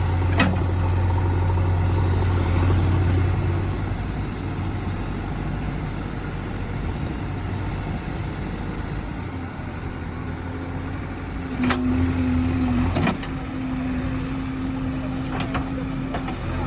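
Heavy diesel machine engine running steadily, with a few sharp knocks about half a second in and again near the end.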